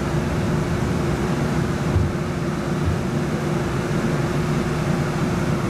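Interior of a Siemens S70 streetcar running along the street: a steady rumble with a constant hum running through it.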